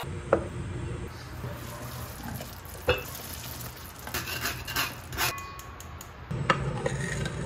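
A ladle scooping and stirring cooked sago pearls in a stainless steel mesh strainer over a pot. It scrapes and rattles against the mesh, with three sharp knocks spread through, over a low steady hum.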